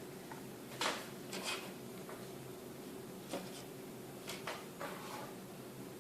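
Small phone parts and tools being handled on a work surface during smartphone reassembly: a few light clicks and short scrapes, spaced out irregularly.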